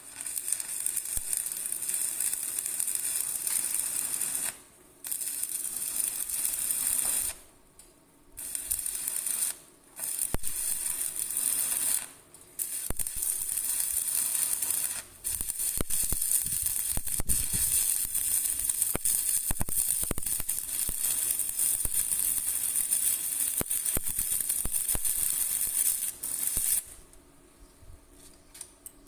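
A mechanical noise, bright and hissy with scattered clicks, running in bursts a few seconds long with short breaks between them; the longest burst lasts about eleven seconds, and the noise stops near the end.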